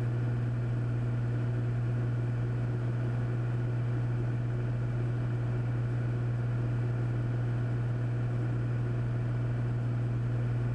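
Steady cabin drone of the Cessna 400's turbocharged six-cylinder Continental engine and propeller, holding constant power with no change in pitch.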